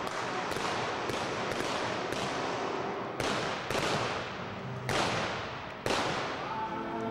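A volley of gunshots, about nine sharp reports fired at an irregular pace, each ringing out in a long echo.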